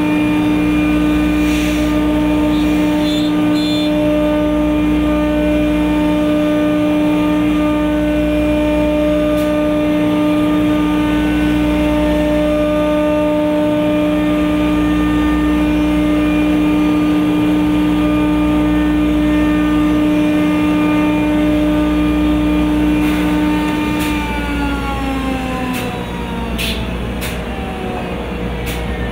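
CNC router spindle running with a steady high whine over a low rumble that swells and fades every few seconds. About 24 seconds in, the spindle winds down, its pitch falling, and a few sharp clicks follow near the end.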